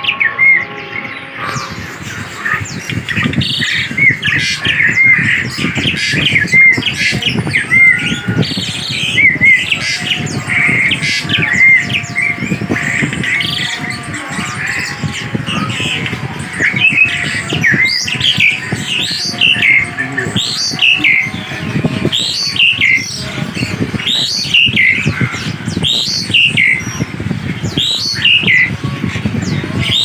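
Caged songbirds calling loudly and continuously: many overlapping short, hooked whistles and chirps repeated over and over, the chorus of a bird-shop full of birds.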